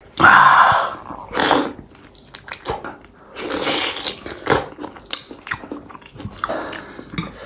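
Close-miked eating: biting into and chewing a large chunk of sauced pork, with a few louder bites and many short wet mouth clicks between them.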